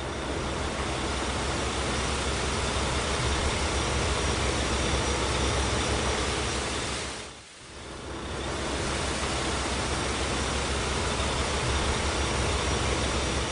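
Water tank truck sound effect: a steady low engine rumble under a loud, even hiss of water spraying, dipping briefly about halfway through.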